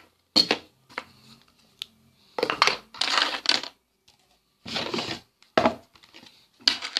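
Rustling and clattering handling noise in several short bursts, from the recording phone being picked up and moved about to a new spot.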